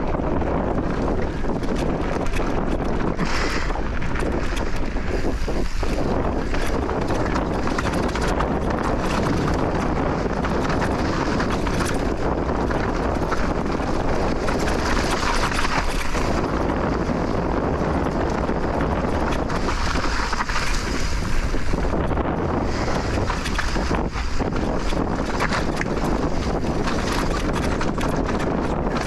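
Steady wind buffeting the microphone, over the rumble of an electric mountain bike's tyres rolling down a rough, rocky trail.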